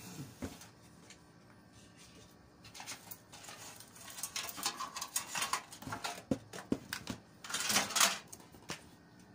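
Light clicks, knocks and rattles of computer parts and cables being handled in a metal desktop case, with a louder scraping rustle about eight seconds in.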